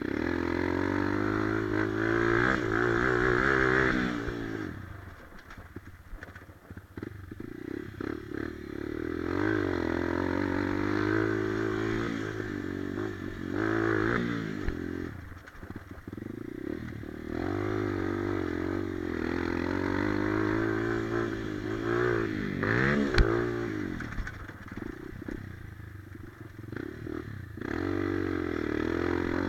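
Dirt bike engine ridden hard, revving up and dropping back over and over as the throttle is worked. It falls away to quieter running in a couple of places, with one sharp knock about three quarters of the way through.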